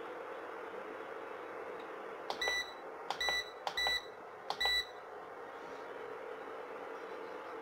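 Induction cooktop control panel beeping four times in quick succession, about two-thirds of a second apart, as its touch buttons are pressed. Each beep is short and pitched, over a steady low hum.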